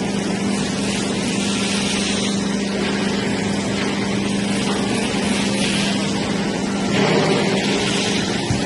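Four-roll CNC plate rolling machine running, a steady machine hum over a constant wash of noise, growing slightly louder about seven seconds in.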